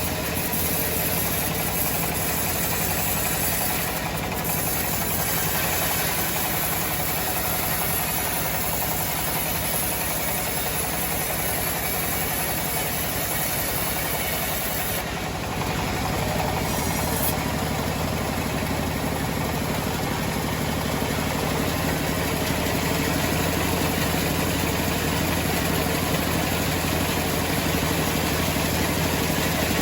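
Homemade sawmill running steadily under its engine drive, a continuous mechanical drone, with brief small dips in level about four seconds in and again near fifteen seconds.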